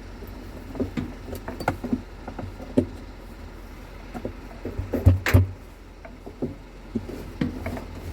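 Irregular clicks and knocks of parts and tools being handled, with two heavier thumps about five seconds in, over a low steady hum.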